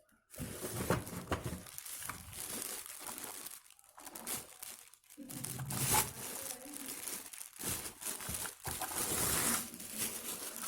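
Packaging crinkling and rustling in irregular stretches with a few short pauses, as a vacuum cleaner's accessories are handled and unwrapped.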